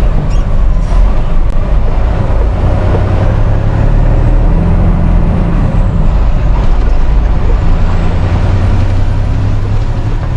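Semi-truck diesel engine running steadily with a loud low hum, its pitch shifting slightly partway through.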